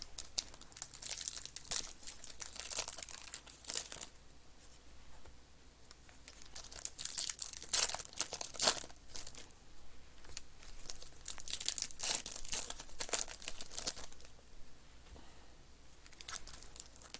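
Plastic trading-card pack wrappers being torn open and crinkled by hand, in several bursts of crackly rustling with short pauses between.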